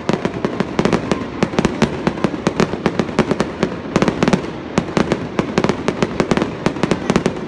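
Fireworks display: aerial shells bursting in a dense, unbroken run of sharp bangs and cracks, several a second.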